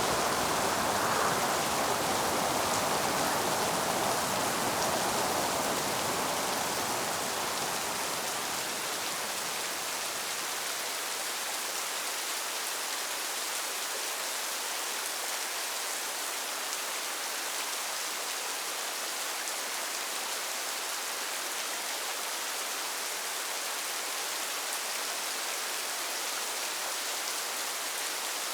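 Steady rainfall hiss. A deeper rushing layer under it fades away over the first several seconds, leaving only the even rain.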